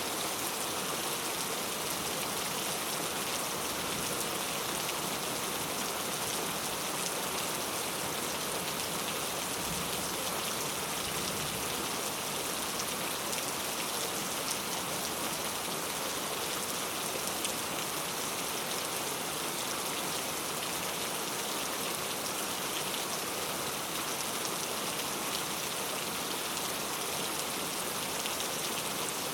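Steady rain falling, with a dense patter of drops landing on surfaces.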